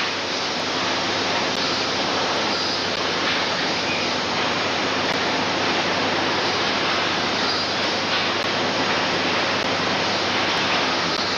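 Steady din of shovel-factory machinery: an even, continuous noise with a faint low hum underneath and no distinct knocks or rhythm.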